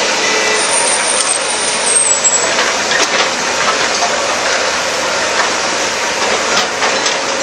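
Bulldozer running loud in demolition work, with scattered knocks and crashes through the steady machine noise.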